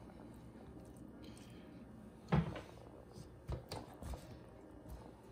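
Kitchen handling noise: a clunk about two and a half seconds in, then a few lighter clicks and knocks as vegetables are pushed around a metal roasting pan.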